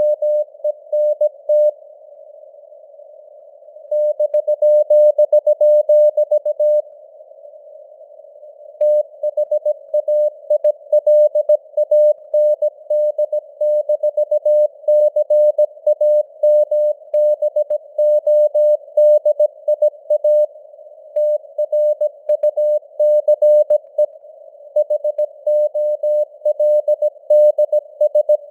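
Morse code (CW) sent at 17 words per minute as a single mid-pitched tone keyed on and off in dots and dashes, over a narrow hiss of simulated radio noise, the signal strength varying (QSB). The keying breaks off twice for about two seconds in the first third.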